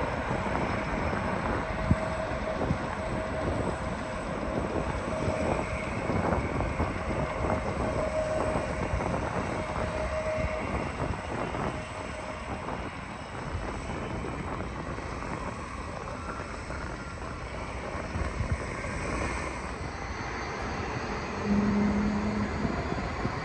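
Jet airliner engines heard from a distance, a steady rumble with a faint whine through the first half.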